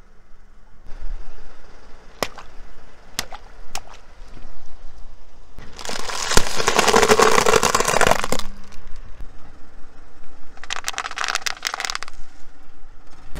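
A car tyre rolls over a bag of dry penne pasta and crushes it with a loud, dense crunching for about two and a half seconds. Near the end, a tyre pops a strip of bubble wrap in a quick crackling run of pops. A few scattered sharp cracks come earlier.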